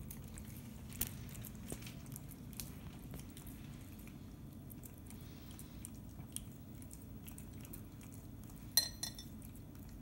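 A cat chewing wet food from a china saucer, with small wet clicks, and one ringing clink of the saucer near the end.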